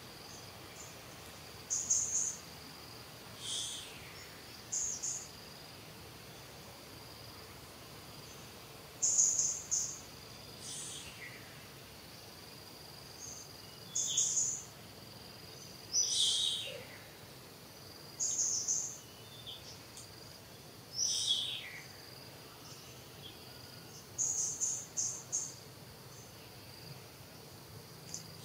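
Outdoor ambience: birds give short, high chirping calls every couple of seconds, several of them falling in pitch. Under the calls runs a steady, faint, high insect drone.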